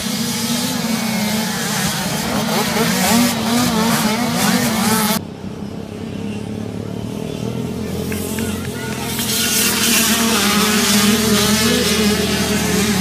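A pack of youth motocross dirt bikes revving hard off the start, many engine notes rising and falling over one another. The sound drops off sharply about five seconds in, then builds again as the bikes race around the track.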